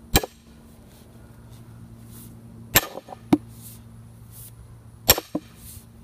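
Splitting maul striking a steel splitting wedge set in a log: three sharp metallic blows about two and a half seconds apart, each followed shortly by a lighter second knock as the maul bounces off the steel.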